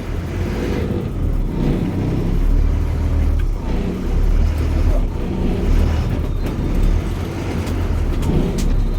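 Ashok Leyland bus with a Euro 4 diesel engine, driving on a road test of its freshly reset differential crown and pinion: a steady low engine and drivetrain drone that swells and eases a little.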